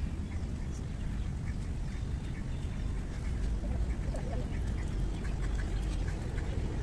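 Birds calling in short scattered notes, over a steady low rumble of wind on the microphone.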